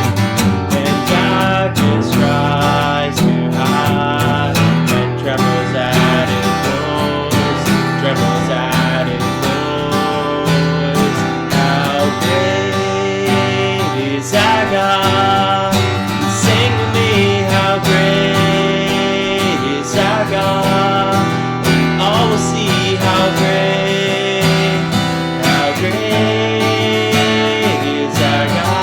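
Music led by a strummed acoustic guitar.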